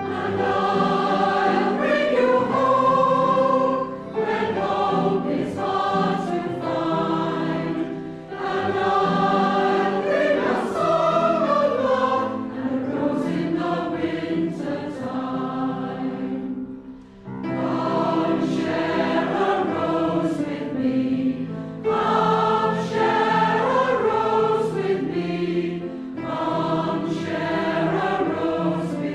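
A group of voices singing a hymn in sustained phrases, with short breaths between lines and a brief pause about 17 seconds in.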